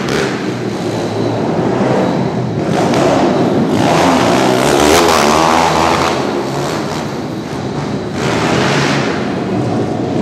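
Pit bike engines revving up and down as the bikes race around a dirt track, their pitch rising and falling, loudest about midway.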